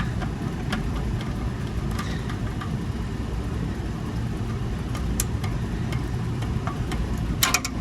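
Tubing cutter being worked around a copper refrigerant line, giving scattered faint metallic clicks and a short rasp near the end, over a steady low rumble of running machinery.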